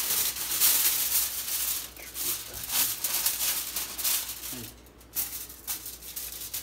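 Aluminium foil crinkling and rustling as it is folded and pressed around a fish. It is loudest in the first two seconds, then goes quieter and more broken.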